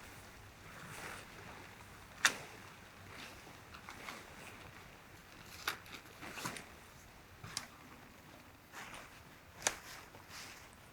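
Objects being handled: scattered light knocks and clicks, four of them sharper, among soft rustling.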